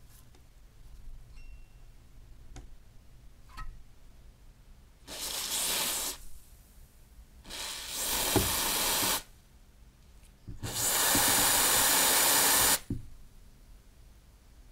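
Aerosol can of Cobra NX-40 penetrating lubricant hissing through its straw nozzle in three bursts, about one, one and a half and two seconds long, the last the longest and loudest, soaking rusted joints to free them. A few faint clicks come before the first burst.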